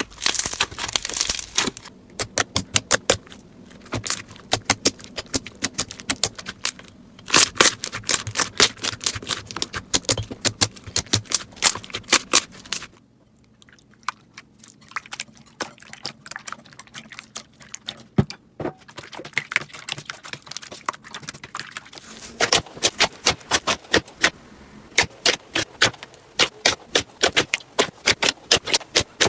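Slime being squeezed and poked by hand, giving runs of sharp crackling clicks and pops. The clicking turns softer and sparser for several seconds in the middle, then picks up again.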